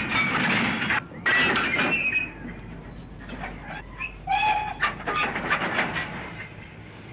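Goods train on the move: a loud rush of noise that breaks off for a moment about a second in and resumes, then wagons clattering and clanking over the rails, with a brief squeal about four seconds in.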